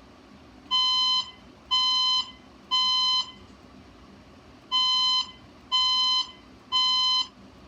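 Fire alarm voice-evacuation speaker sounding the temporal-three evacuation tone: three half-second beeps of one steady pitch, a pause, then three more. This three-beep pattern is the standard signal to evacuate the building, sounding here during an alarm system test.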